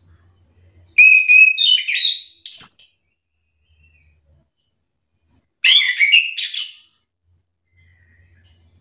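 Chestnut-capped thrush (anis kembang) singing two short phrases of quick, varied whistled notes, the first about a second in and the second just past the middle.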